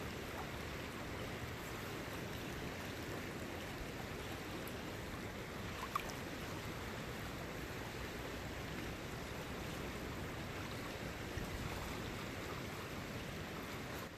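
Steady rush of a creek's current running over riffles, with one brief click about six seconds in.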